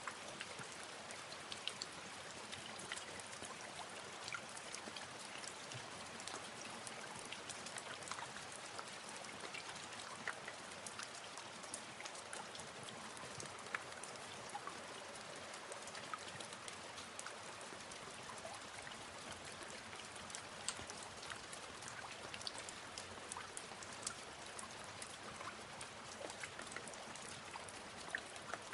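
Steady rain, many small drops pattering and ticking.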